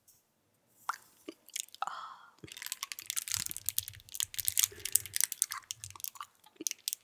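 Open plastic bottle of honey jelly squeezed and turned in the hands, the plastic and its label crackling and clicking densely from about two and a half seconds in, after a nearly silent start.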